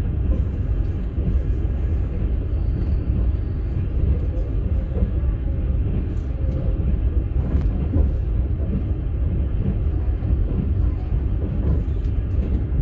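Steady low rumble of a moving passenger train, heard from inside a platzkart sleeper car as the wheels run over the rails, with a few faint knocks now and then.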